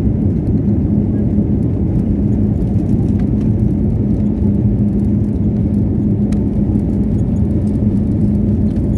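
Steady low rumble of an airliner's engines and airflow heard from inside the cabin, with a constant low hum running through it.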